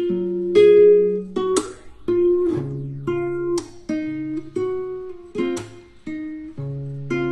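Background music: an acoustic guitar picking a gentle melody over bass notes, several plucked notes a second, each dying away.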